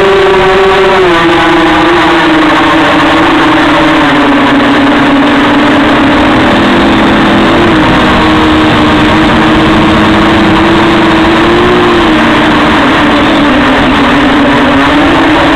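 Electric motors and propellers of a small multirotor drone, heard loud and close from its onboard camera: a steady, loud buzz whose pitch sags during the first few seconds, then holds with small wavers.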